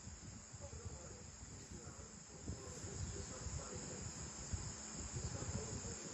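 Quiet background: a steady high-pitched trill or whine, with soft, uneven low rumbling underneath.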